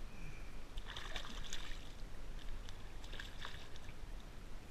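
Water splashing in two short bouts, about a second in and again about three seconds in, as a small fish just let go beside the kayak thrashes at the surface, over a steady low rumble.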